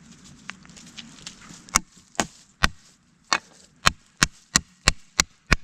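A run of about a dozen sharp knocks or chops, a little under three a second, starting about two seconds in and coming slightly faster toward the end.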